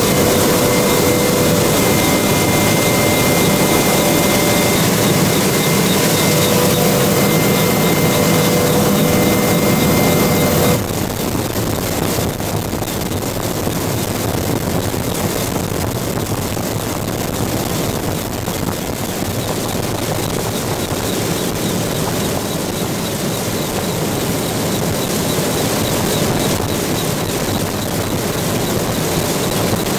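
EH-101 Merlin helicopter hovering, heard from inside the cabin at the open door: a loud, steady rotor and engine noise with thin, steady high tones on top. About eleven seconds in the sound changes abruptly, a little quieter and without the tones, and then runs steadily on.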